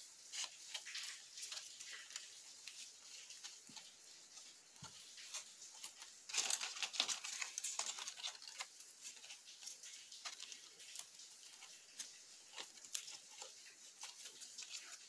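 Faint rustling and small crackles of hands wrapping floral tape around the wire stems of EVA foam flowers and leaves. The sound is busiest about six to eight seconds in.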